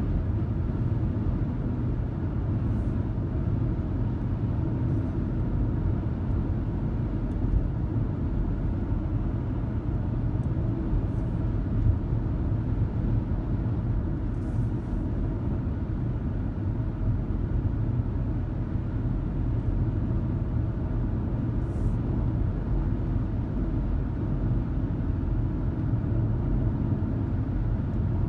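Car driving steadily on a highway, heard from inside the car: a constant low rumble of tyre and engine noise.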